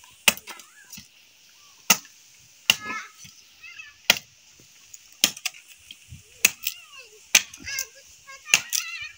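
Eight sharp knocks of a tool striking wood, irregularly about a second apart, with short high-pitched animal squeals between the strikes.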